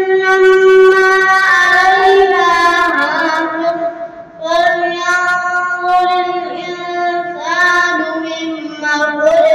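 A boy reciting the Quran in a melodic, chanted style, holding long drawn-out notes that slowly bend in pitch, with a brief pause for breath about four seconds in.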